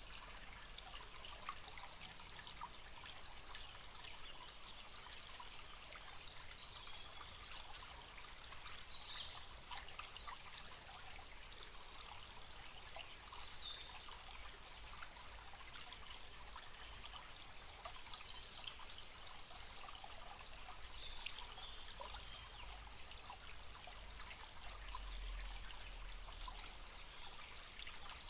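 Forest stream flowing steadily, with brief high bird chirps scattered throughout.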